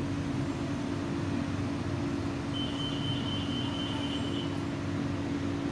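Inside a BTS Skytrain car moving slowly through a station: the steady hum and rumble of the train, with a thin high whine for about two seconds midway.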